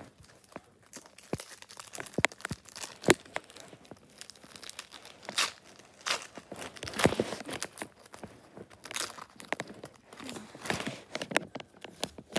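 A Lego trading-card pack wrapper being torn open and crinkled by hand, in irregular crackles and sharp clicks, loudest about seven seconds in. The stiff cards inside rustle and click as they are pulled out.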